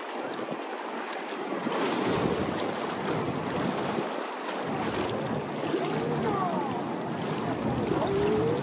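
Strong wind howling over Lake Michigan with waves washing in, the gusts buffeting the microphone. It swells about two seconds in, and a few short whistling glides in pitch come near the end.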